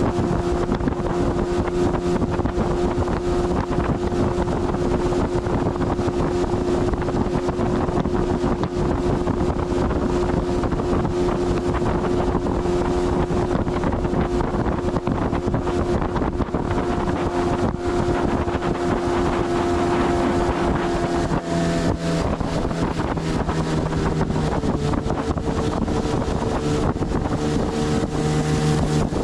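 Motorboat engine running steadily under way, with wind buffeting the microphone; the engine note changes about three-quarters of the way through as the speed changes.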